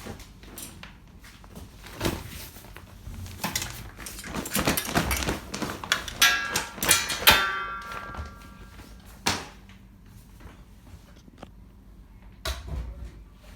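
Hands working a coin-operated washing machine: scattered knocks and thumps, with a dense clatter of clinks that ring briefly about halfway through, then two single sharp thumps.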